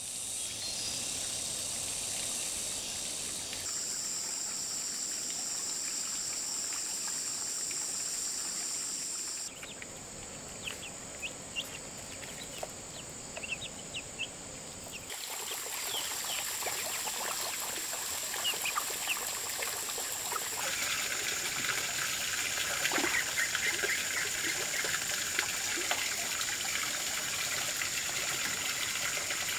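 A steady high-pitched drone at first. About ten seconds in come the short, rapid peeps of ducklings and chicks. From about fifteen seconds, water trickles and splashes off a hand net lifted from a pond.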